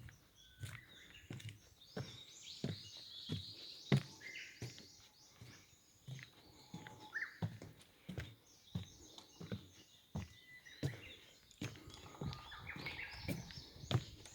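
Footsteps walking at an even pace, about one and a half steps a second, with small birds chirping and trilling over them.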